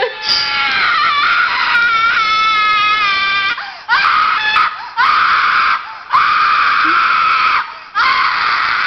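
A screaming ringtone played on a phone: a woman's recorded screams, about five in a row with short breaks, the first the longest with a wavering pitch.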